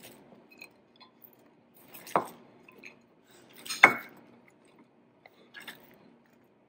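Two sharp knocks of a knife on a cutting board, about two and four seconds in, with a few faint clicks between them, as an onion is diced into chunks. A faint low steady hum runs underneath.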